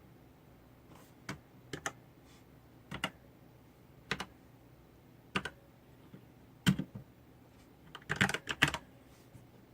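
Keys on an ABCO Hacker K8100 mechanical keyboard with red linear switches being pressed one at a time, roughly a second apart, then a quick flurry of several presses near the end.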